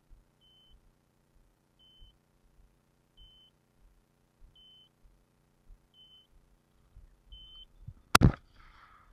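A dog's beeper collar giving a short high beep about every second and a half, six times, the fast repeat that marks a bird dog on point. About a second before the end comes one loud shotgun shot.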